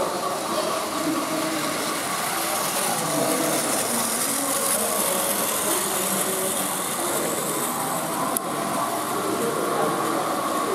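Many battery-powered Plarail toy trains running at once on plastic track, a steady whirr of small motors and wheels, with indistinct voices in the background. A single brief click about eight seconds in.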